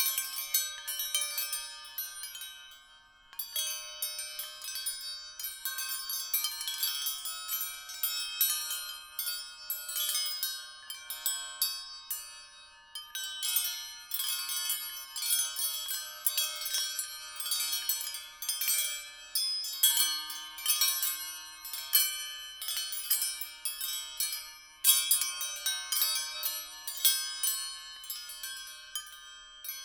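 Metal wind chimes tinkling in a dense, irregular jingle of high ringing strikes, with brief lulls near the start and late on.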